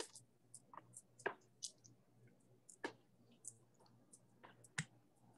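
Faint, irregular clicks and taps of a spoon scooping Cool Whip out of its plastic tub into a bowl.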